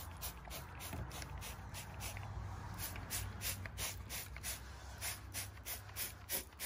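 Hand cleaning of an old enamel stove with spray degreaser: quick hissing strokes, about three a second, sparse at first and stronger in the second half, over a steady low hum.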